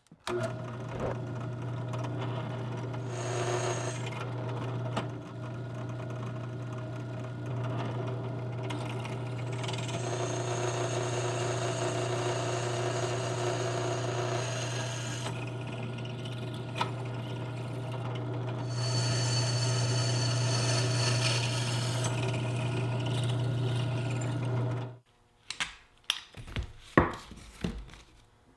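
Drill press running and drilling holes through the metal rake: a steady motor hum with a cutting noise that swells and eases as the bit works. The press stops suddenly near the end, followed by a few knocks.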